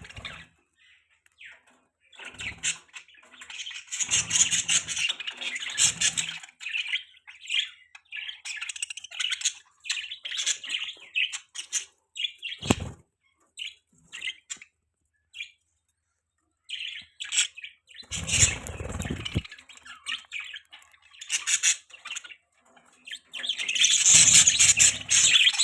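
Budgerigars chirping and chattering in quick clusters of short, high calls with brief pauses between them. A few low rumbling bursts are mixed in among the calls.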